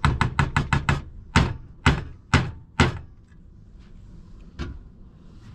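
A kitchen utensil knocking against a mixing bowl: a quick run of about eight knocks in the first second, then four harder knocks about half a second apart, and one lighter knock near the end.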